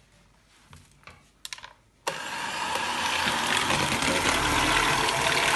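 A couple of faint clicks, then about two seconds in an electric hand mixer switches on abruptly and runs steadily, beating crepe batter.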